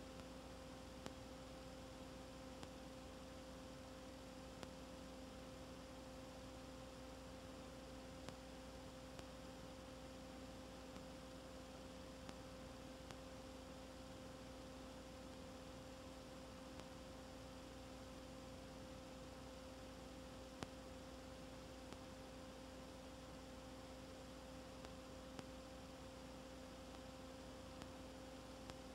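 Faint, steady electrical hum with a low hiss and a few tiny scattered clicks: the background noise of an old home-movie transfer, with no sound from the game itself.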